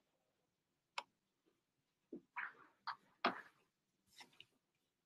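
Faint, scattered clicks and soft knocks: a single sharp click about a second in, then a cluster of several clicks and short scuffs between about two and four and a half seconds in.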